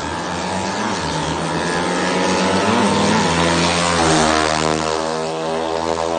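Drag-racing motorcycle engine at full throttle, its pitch climbing and dropping back with each gear change, growing loudest as the bike passes close about four seconds in.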